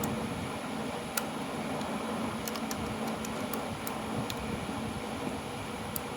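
Electric fan running steadily, with a few light, sharp clicks.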